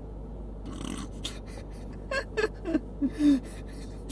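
A person breathing out hard, then a run of short laughs, about three a second, the loudest near the end.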